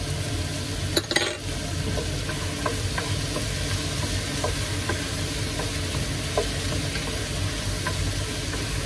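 Chopped onion, celery, carrot and garlic sizzling in olive oil in a pot while a wooden spoon stirs them, with a brief clatter about a second in.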